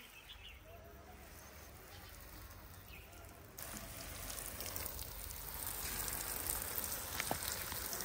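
Water spraying onto a garden bed as it is watered. It comes in suddenly as a steady hiss about three and a half seconds in, after a faint start, and grows a little louder.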